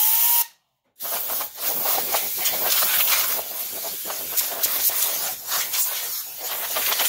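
Compressed air hissing from a blow-gun nozzle as dust is blown out of an open DLP projector's interior. The blast breaks off for about half a second near the start, then comes back in uneven, pulsing spurts as the nozzle is moved around.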